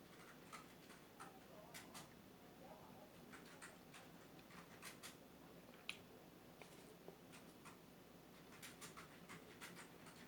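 Near silence: quiet room tone with scattered faint clicks and ticks at irregular intervals, one slightly sharper about six seconds in.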